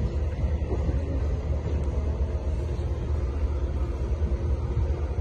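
Heavy diesel machinery, a port grab crane and an excavator working a cargo ship's hold, running with a steady low rumble.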